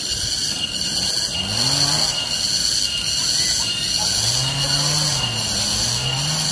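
Garengpung cicadas calling: a loud, steady shrill tone with a pulsing hiss above it. Underneath, low drawn-out gliding calls or voices come in, strongest around the middle.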